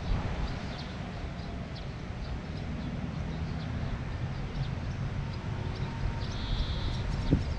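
Wind rumbling on the microphone, with faint bird chirps throughout and a short, higher call shortly before the end. A dull knock just before the end.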